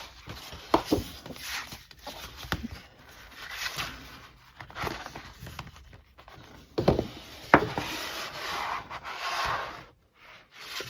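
Paper and cardboard being handled: rustling, rubbing and sliding of postcards and packaging, with a few light knocks, the sharpest a little after the middle.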